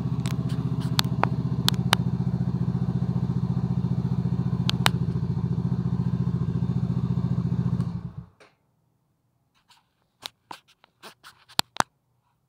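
Single-cylinder engine of an RPS Condor 150cc Grom-clone motorcycle idling steadily, then cutting off abruptly about eight seconds in, followed by a few light clicks.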